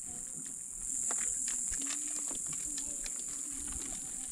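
Steady high-pitched chorus of insects, louder from about a second in, with scattered light clicks and knocks.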